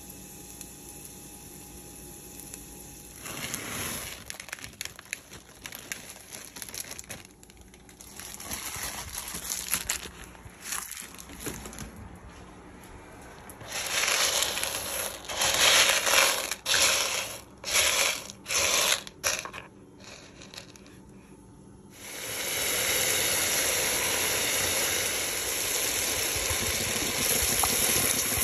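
Garlic cloves sizzling in olive oil in a pot. About halfway through, dry split peas rattle into the pot in several loud bursts. In the last quarter, water pours steadily into the pot.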